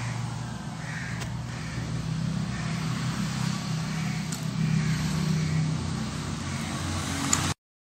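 Steady low background hum, with a few faint light taps; the sound cuts off suddenly near the end.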